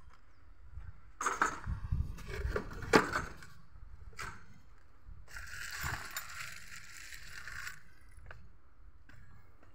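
Bamboo ladder knocking and clattering as it is set up against a wall, with a run of knocks in the first three seconds and single knocks later, plus a few seconds of rustling in the middle.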